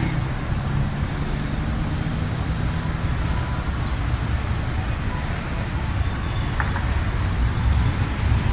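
Steady rumble of road traffic on the street below, with birds chirping high over it.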